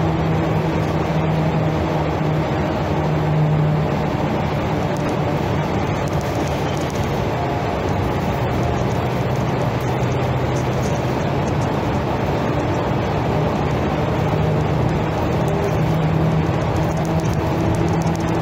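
City bus heard from inside the passenger cabin while driving: the engine and drivetrain hum steadily over road noise. The hum drops in pitch for a while midway and rises again near the end as the bus's speed changes.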